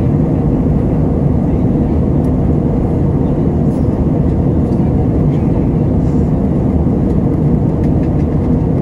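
Steady cabin noise of an Airbus A320 in flight, heard from a window seat: an even, low rush of airflow and engine noise with a faint hum in it.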